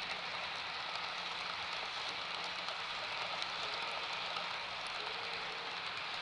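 HO scale model freight cars rolling past on the track: a steady rushing noise of small metal wheels on the rails, with faint light clicks.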